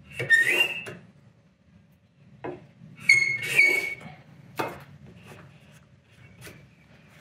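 Two strokes of a Melbourne Tool Company block plane shaving end grain, each a hissing scrape with a high tone sounding through it. Short sharp knocks come between the strokes and just after them.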